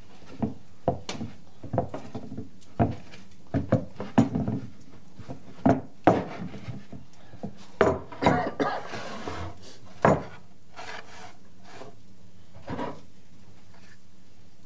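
Irregular wooden knocks and rubbing as a wooden bread bowl of sourdough dough is handled by hand and set against a wooden board, with a short scraping hiss about nine seconds in just before the loudest knock. The handling goes quiet for the last few seconds.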